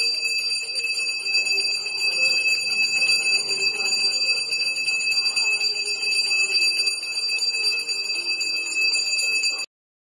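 A bell rung continuously for aarti worship: one steady, high, piercing ring that lasts about ten seconds and cuts off abruptly near the end.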